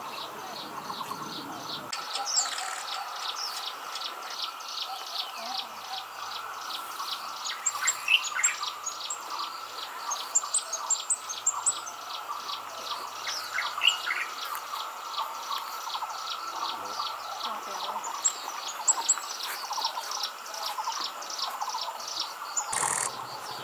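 Small wild birds chirping in a few short runs of quick, high notes, with a couple of rising calls, over a steady insect chorus pulsing at about four or five pulses a second.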